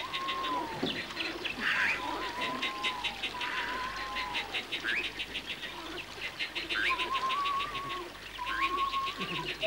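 Birds singing: a fast, even ticking trill runs throughout, overlaid by clear whistled notes that rise and fall, repeating every second or so.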